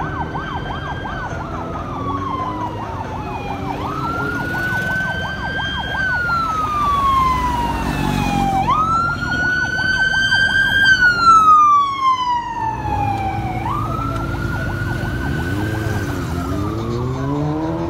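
Sirens of race escort vehicles wailing as they pass. Each wail rises sharply and then falls away over about three seconds, repeating four times. A faster warbling siren runs underneath at first, and a second, lower siren comes in near the end. It is loudest about eleven seconds in.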